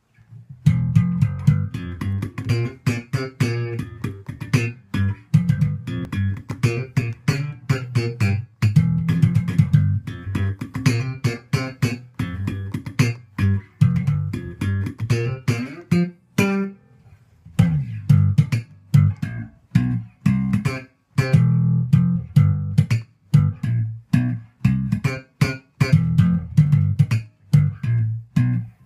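Enfield Lionheart bass guitar played in a fast run of plucked notes, with a short pause about halfway through before the playing picks up again.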